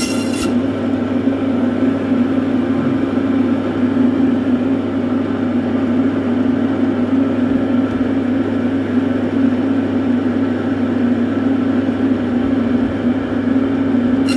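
A steady, unchanging mechanical drone with a constant low hum underneath, as from a vehicle or machine running.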